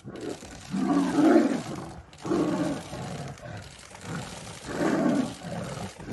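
Tiger growling and roaring in several bursts as it grapples with and bites a downed prey animal; the loudest burst comes about a second in.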